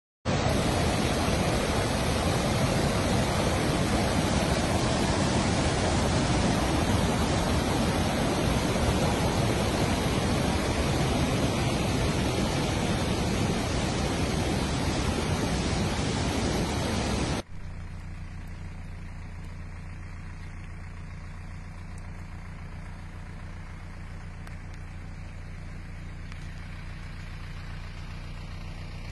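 Brown flash-flood water rushing over rocks in a swollen stream, a loud, even rush. More than halfway through it cuts off suddenly to a quieter, low steady hum.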